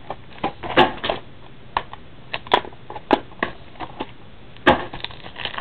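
Irregular clicks, taps and light scrapes of trading-card boxes being worked out of their little packaging tubes, with one louder knock near the end.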